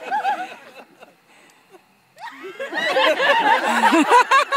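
An audience laughing. After a short lull it breaks out loudly about two seconds in, many voices at once.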